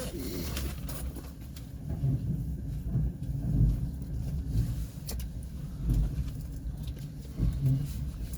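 Passenger train running on the track: a low rumble with uneven knocks of the wheels over the rails every second or two.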